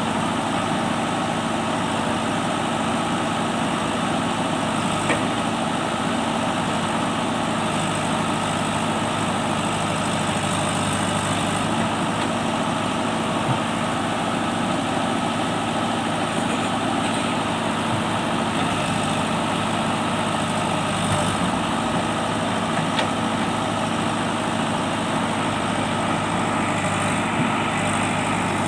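Diesel engine of a JCB digger running steadily at an even pitch, with a few faint clicks.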